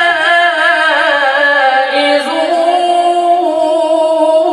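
A man reciting the Qur'an in the melodic tajwid style into a microphone, drawing out one long, unbroken, ornamented note whose pitch dips and then rises again about halfway through.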